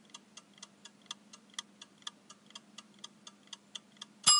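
Quiz countdown-timer sound effect: clock ticks, about four a second. Near the end a sudden loud bell-like ding with several ringing tones marks time up.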